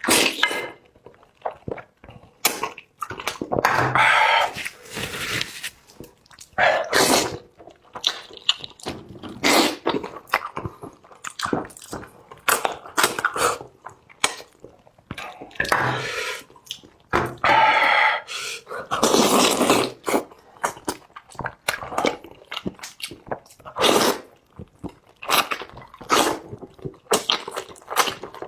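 Close-up eating sounds: wet chewing and smacking with many quick clicks, broken by several longer slurps.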